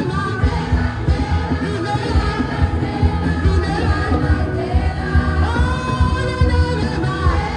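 Music: voices singing a praise song over a band with a heavy bass.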